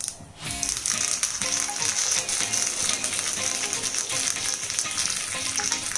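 Curry leaves spluttering in hot ghee with popping mustard seeds during a tempering: a dense, fast crackle of pops and sizzle that starts about half a second in, as the leaves hit the fat.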